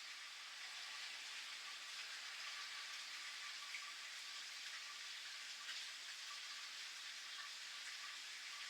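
Steady rain falling: an even hiss of rain with scattered small drop ticks.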